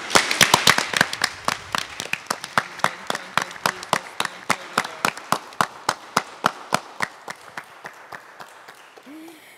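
Applause: a burst of hand clapping from a small group, then steady individual claps at about four a second that fade toward the end.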